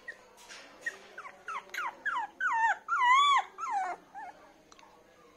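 Poodle puppy whimpering: a run of about ten high, short whines that grow longer and louder, the longest ones wavering up and down in pitch, then tailing off.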